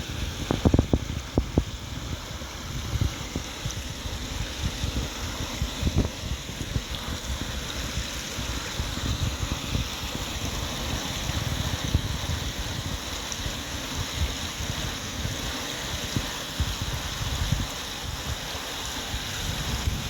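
Steady rush of the Lachine Rapids' white water, with wind buffeting the microphone in uneven gusts. A few sharp knocks sound near the start.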